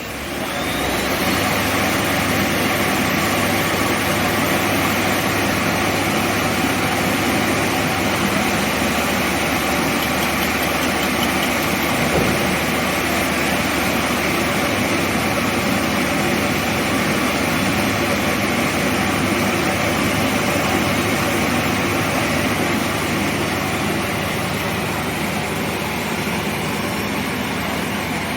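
VEGA OCN-PPL CNC lathe running, its spindle spinning up over the first second with a rising tone, then holding a steady mechanical hum with several steady tones.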